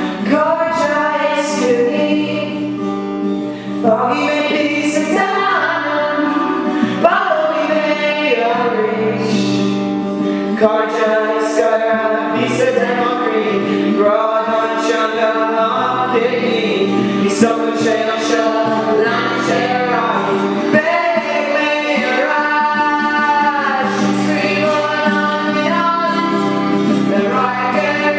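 A song playing as background music: sung vocals over steady instrumental backing.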